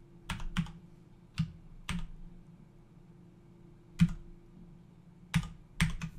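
Slow typing on a computer keyboard: about eight single keystrokes, unevenly spaced, with a pause of about two seconds in the middle.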